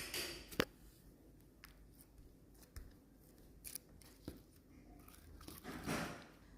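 Slime being squished and pulled in the hands: a few sharp pops and clicks, the sharpest under a second in, and a longer squishing sound near the end.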